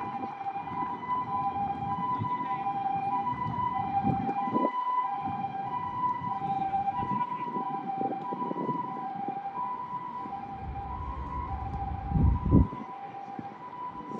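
Two-tone emergency-vehicle siren switching back and forth between a high note and a lower note in an even rhythm. It is heard over low rumbling noise, which swells into a short loud burst about twelve seconds in.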